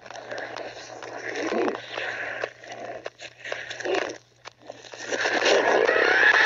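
A distorted horror sound clip: irregular harsh noise over a steady low hum, growing louder about five seconds in.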